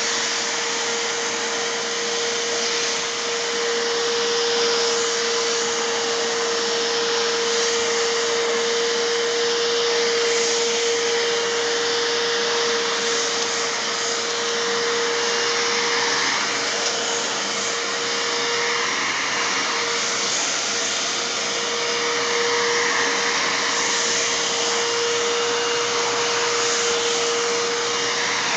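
Bissell Lift-Off Multi-Cyclonic Pet canister vacuum running steadily while vacuuming a rug: a constant whine over rushing air.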